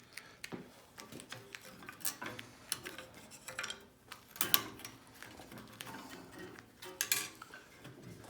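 Scattered clicks and light knocks of the bandsaw's table plate being handled and taken out, the loudest about four and a half seconds in and again about seven seconds in. The saw is not running.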